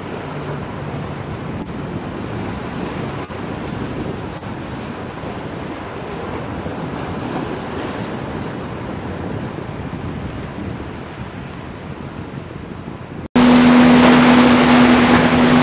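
Wind buffeting the microphone over breaking waves and boat wake, with a faint low engine hum. About thirteen seconds in it cuts abruptly to a much louder rush of churned water with a steady low engine drone.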